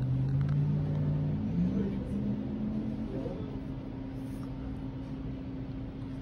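A person humming or groaning with closed lips in held low notes, stepping up to a higher note about two seconds in and stopping about three seconds in. A steady low hum runs underneath.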